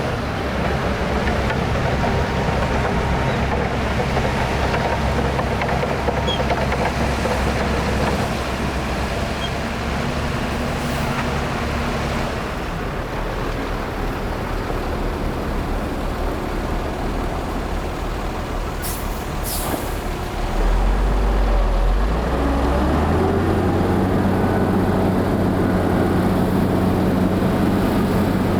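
Heavy diesel earthmoving machinery running under load, its engine note shifting several times and stepping up to a louder, deeper run about two-thirds of the way through. Two short hisses of air come just before that step.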